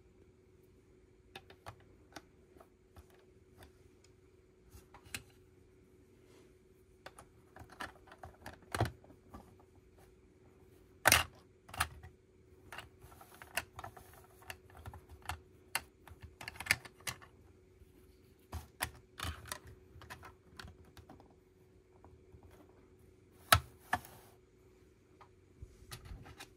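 Lego bricks clicking and rattling as plastic pieces are handled and pressed together: irregular sharp clicks, with a couple of louder clacks. A faint steady hum runs underneath.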